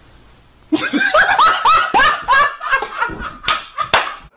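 Loud burst of laughter in rapid repeated pulses, about three or four a second, that cuts off suddenly.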